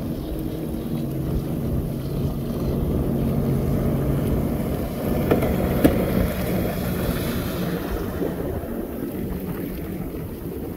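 Engine of a watercraft running steadily at speed, with wind buffeting the microphone and water rushing past the hull. There are two sharp knocks or slaps on the water about five and six seconds in.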